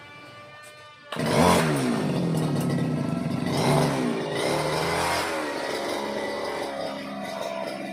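Motorcycle engine running, then revved hard about a second in, its pitch rising and falling through several rev changes.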